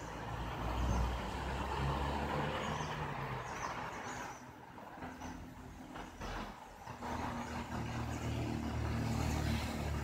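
A motor vehicle's engine running, a steady low hum that swells about a second in, eases off midway and swells again before fading near the end.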